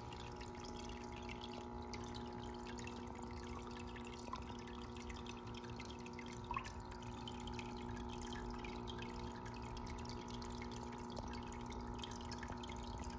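Faint steady hum of aquarium equipment with light water trickling, and a couple of soft drips about four and six seconds in.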